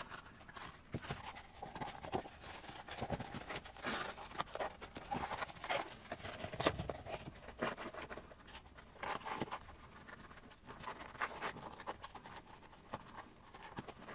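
Hands working a foam insert into a 1/10-scale RC crawler's rubber tire: rubber and foam rubbing and rustling, with irregular soft knocks on the desk mat.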